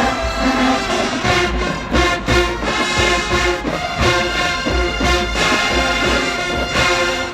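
Marching band brass section playing held chords over a steady drum beat, loud and full.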